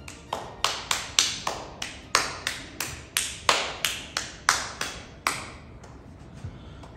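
Hand-clapping from a lone audience member: about sixteen sharp claps, roughly three a second, stopping about five seconds in.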